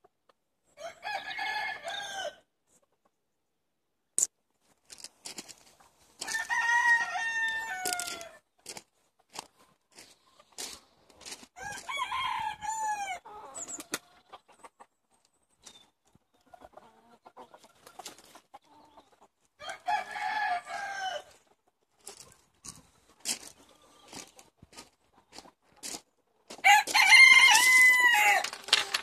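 Roosters crowing five times, a few seconds apart, each crow lasting about two seconds; the last crow is the loudest. Short faint clicks fall between the crows.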